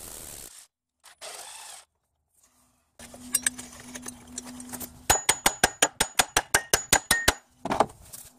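Metal clinking from hand tools and the engine mount being taken off: scattered clinks, then a quick run of evenly spaced sharp clicks, about six a second for some two seconds. A steady hiss is heard briefly at the start.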